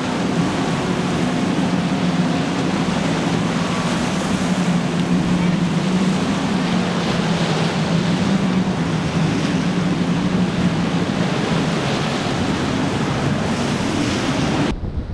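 Waves and wind noise with a steady low drone of motorboat engines under it; the sound changes abruptly near the end.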